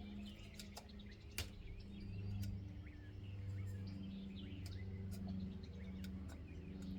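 Faint light clicks of a hand pick working old rubber O-ring seals off a plastic oil filter housing, over a steady low hum, with birds chirping in the background.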